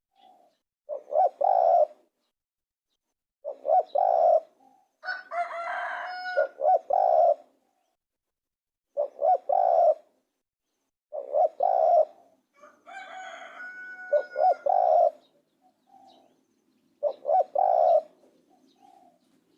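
Spotted dove cooing: short phrases of low coos repeated every few seconds. Twice, a longer steady-pitched call from another bird sounds over them.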